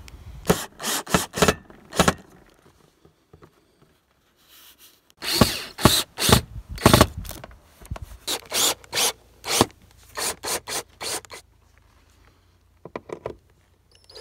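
Bursts of short, sharp scraping strokes, about three or four a second, as metal screws are worked by hand through a flexible solar panel into a sheet-metal van roof. The strokes come in three bunches, the loudest about halfway through, with quiet gaps between.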